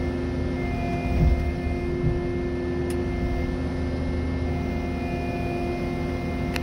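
Cat 306 mini excavator's diesel engine running steadily, heard from inside the cab, with a higher hydraulic whine that comes and goes as the boom swings. Two dull thumps come one to two seconds in.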